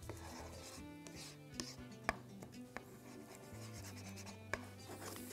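Silicone spatula stirring diced pineapple in a nonstick frying pan, with a few short, sharp taps against the pan, the loudest about two seconds in, over faint background music.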